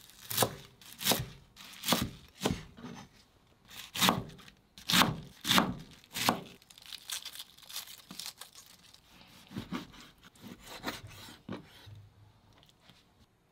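Global chef's knife chopping Chinese chives and spring cabbage on a cutting board: a series of crisp cuts about a second apart, each knocking on the board. After about six seconds the cuts turn softer and lighter, and they die away near the end.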